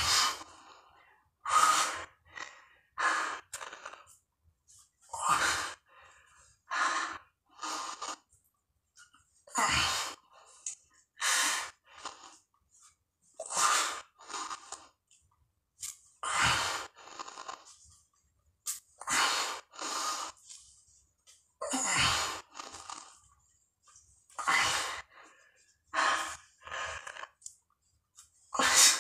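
Heavy breathing of a man doing push-ups, with a sharp, gusty breath about every second or so. This is the laboured breathing of exertion near the end of a 200-rep set.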